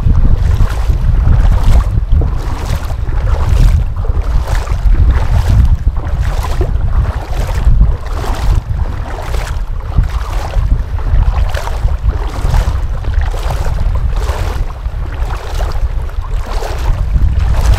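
Steady wading steps splashing through shallow seawater, about two a second, under heavy wind rumble on the microphone.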